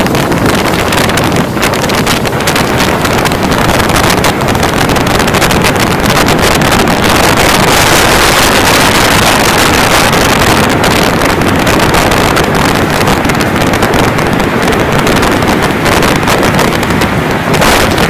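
Strong storm wind buffeting the microphone, with heavy wind-driven rain. It is a loud, continuous rush that rises and falls in gusts and is strongest around the middle.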